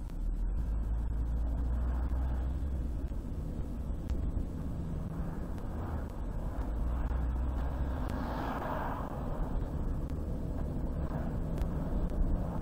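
Car driving on a highway: a steady low rumble of road and engine noise, with a brief swell of hiss about eight seconds in.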